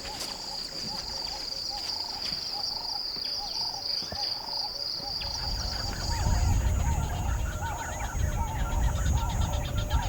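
Wild bush ambience: a bird calling over and over, about two short calls a second, over a steady high insect buzz that stops about five seconds in. From about six seconds a louder low noise comes in, with more chirps above it.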